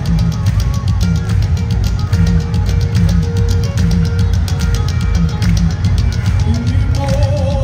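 Live gospel band music at a fast, steady beat, with drum kit, heavy bass and guitar playing an upbeat dance groove.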